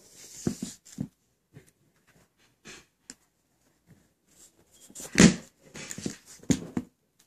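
Handling noise: scattered soft rustles and light knocks as a sneaker is turned over by hand above its cardboard shoebox, with one louder short noise about five seconds in.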